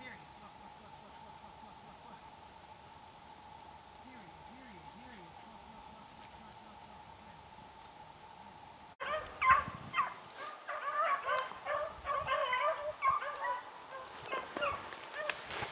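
Crickets chirping in a fast, steady pulse; after an abrupt cut about nine seconds in, beagles bay and yelp in irregular bursts as they run a rabbit.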